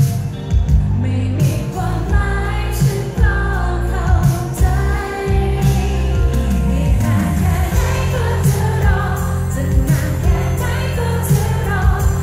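Live pop band playing a song, with a singer over drums, bass and guitars and a heavy low end.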